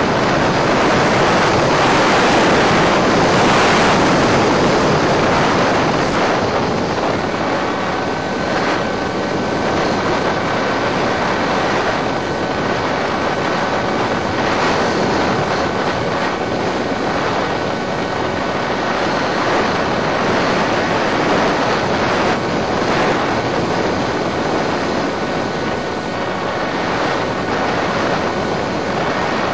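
Steady rushing noise of a Multiplex Easystar model plane in flight, as heard on its FPV audio: wind rush over the airframe and its electric pusher motor and propeller running under power, with a faint steady whine through it. The noise swells a little a few seconds in.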